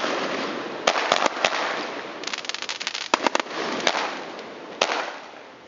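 Fireworks going off: a series of sharp bangs, with a rapid run of crackles about two seconds in and a steady hiss between the reports.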